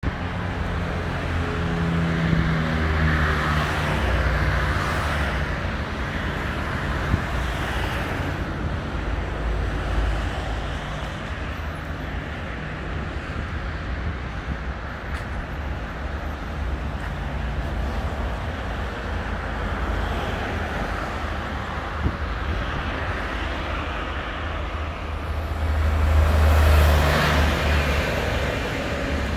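Road traffic passing: a steady roar of tyres and engines that swells and fades as vehicles go by, with one passing loudest near the end.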